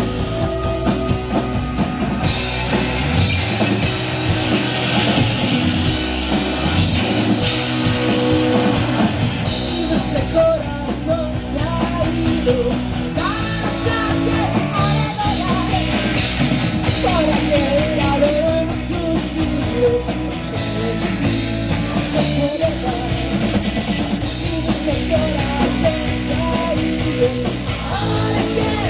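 Rock band playing live: electric guitar and drum kit at a steady, driving pace, with a voice singing over it in places.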